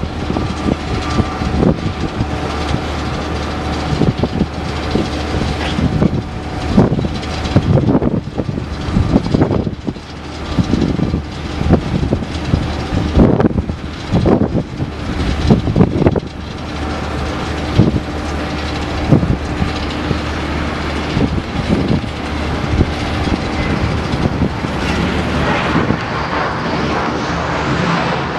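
Strong wind buffeting the microphone in irregular gusts over a steady low rumble and the whine of an Airbus A320's jet engines. Near the end the jet noise grows louder as the airliner approaches.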